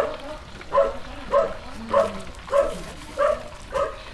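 A dog barking in a steady rhythm, about seven barks, one every half second or so.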